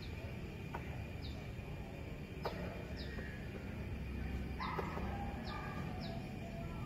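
Small birds chirping: short, high, falling chirps about once a second, over a low steady background rumble.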